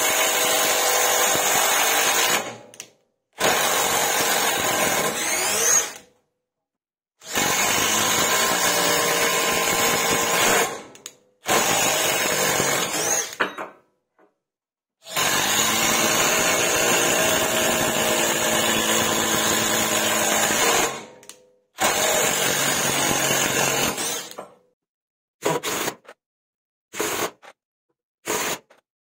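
Parkside Performance PDSSAP 20-Li cordless impact driver hammering long screws into wood in a series of runs of several seconds each. Near the end come a handful of short bursts.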